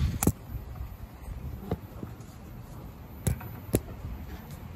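Swing chains and hangers clicking with the swinging, a sharp click roughly every second and a half, over a low rumble of moving air on the microphone.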